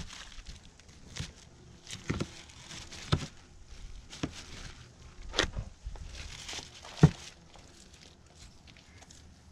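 Fillet knife cutting and scraping meat off a deer leg bone, in irregular scrapes and knocks. The sharpest knock comes about seven seconds in.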